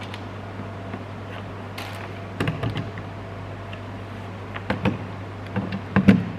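A steady low hum with a handful of short knocks and clicks starting about two and a half seconds in, the loudest near the end.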